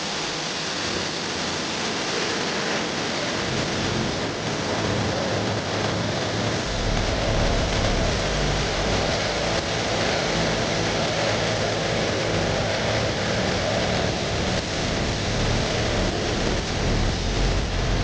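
Pressure washer spray hissing steadily against a car's bodywork, with a low hum joining about seven seconds in.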